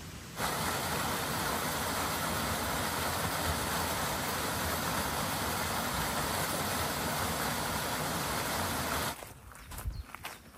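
A steady, loud rushing hiss that starts suddenly and cuts off abruptly about nine seconds in. Quieter footsteps follow.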